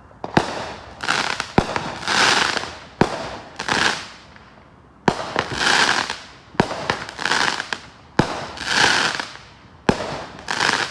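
Fireworks going off in quick succession: a sharp bang roughly every second, each followed by a loud crackling, hissing burst.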